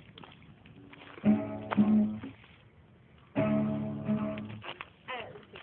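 Acoustic guitar being strummed: a few chords struck, each ringing out for about a second before the next.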